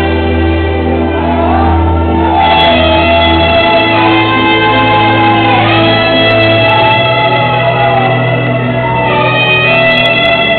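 Instrumental music: sustained notes over a steady bass, with the bass moving to a new note about a third of the way in and a melody sliding between pitches above it.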